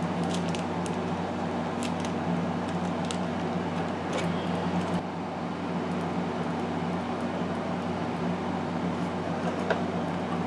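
Steady mechanical hum with a few faint, scattered clicks.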